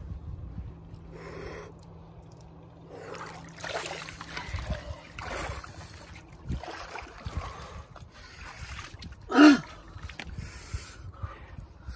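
Water sloshing and dripping as a man climbs out of an ice hole up a metal ladder, with hard breathing after the ice-water plunge. About nine seconds in comes one short, loud cry.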